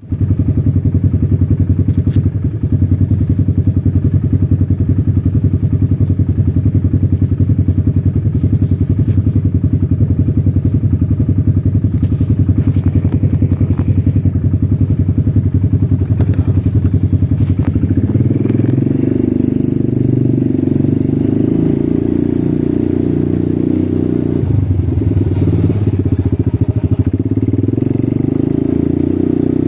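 ATV engine running with a fast, even pulse, then about eighteen seconds in its note rises and holds there.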